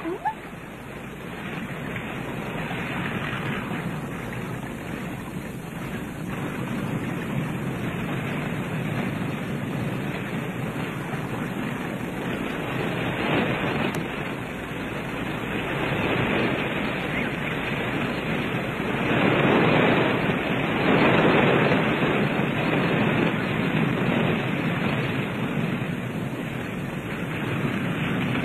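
Wind rushing through fir trees, a steady hiss that swells and eases in gusts, loudest about two-thirds of the way through.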